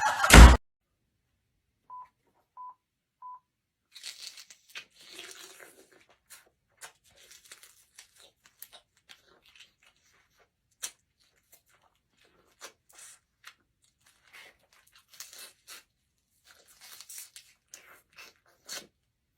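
Three short, identical beeps, then a long run of faint, irregular crackling and crinkling, like something being torn or crumpled.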